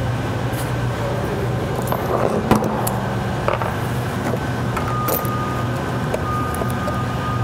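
Irregular metal clicks and clinks of a socket wrench and combination wrench on a car battery terminal bolt as a terminal clamp is tightened onto the negative post, over a steady low hum.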